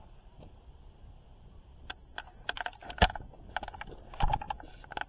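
A run of irregular sharp clicks and taps from small hard things being handled. It starts about two seconds in, with a louder cluster near the end.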